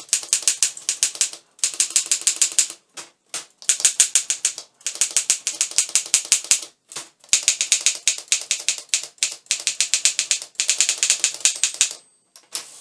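Underwood office typewriter being typed on: rapid, sharp keystrokes of the type levers striking the platen, in about six quick runs with short pauses between them.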